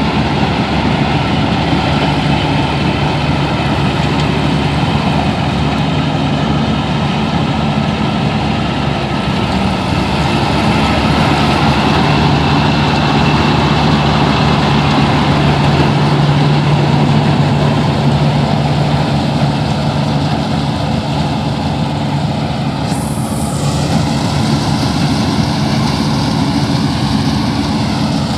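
Combine harvester's engine running steadily while harvesting rice.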